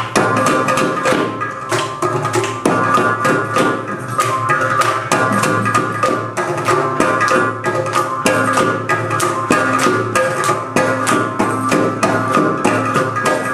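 South Indian Carnatic percussion ensemble of mridangam, kanjira, ghatam and morsing playing together in a tani avartanam: quick, dense drum and clay-pot strokes, several a second, over a steady pitched drone.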